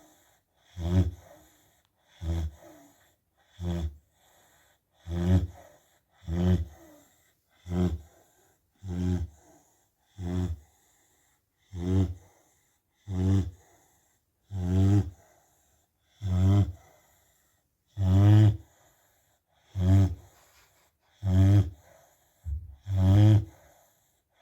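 Rottweiler snoring heavily: a low, pitched snore on each breath, about one every second and a half.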